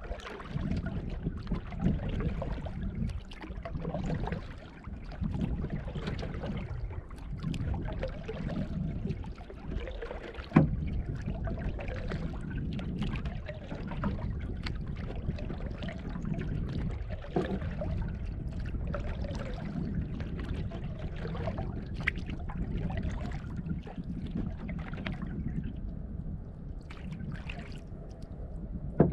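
Canoe moving on calm water: paddle strokes and water trickling and gurgling along the hull. A single sharp knock about ten seconds in.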